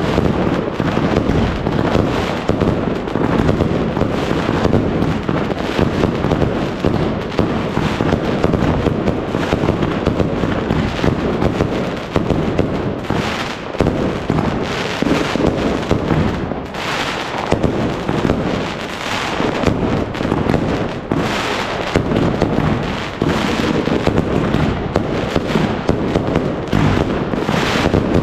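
Fireworks and firecrackers going off without pause: a dense, continuous barrage of bangs and crackling, with separate sharper cracks standing out in the second half.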